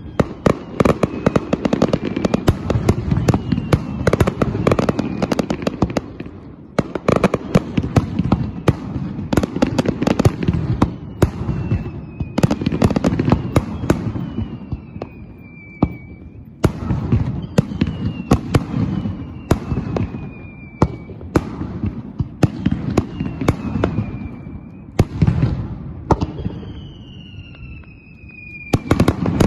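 Fireworks display: rapid volleys of aerial shell bursts with crackling, separated by short lulls, with repeated high whistles that fall in pitch.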